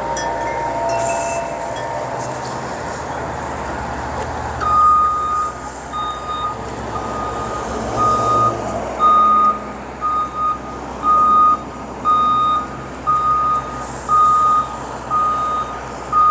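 A truck's reversing alarm beeping about once a second, starting about five seconds in, over steady outdoor background noise.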